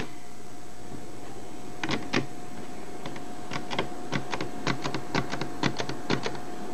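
Small irregular clicks and taps of handling: two about two seconds in, then a quick uneven run of clicks from about halfway almost to the end. Under them is a steady faint hum.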